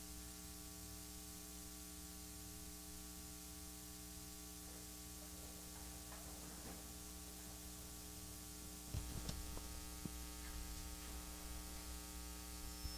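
Steady electrical mains hum with many overtones. A few faint knocks and clicks come in from about nine seconds in.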